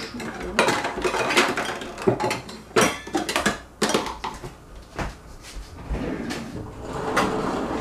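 Kitchen handling clatter: irregular knocks and clinks of utensils and a drawer being rummaged through.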